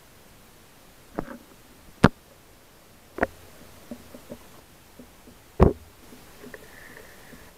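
Underwater knocks and clicks from spearfishing gear as a speared fish is handled on the line. There are four sharp knocks spread over several seconds, with fainter ticks between them.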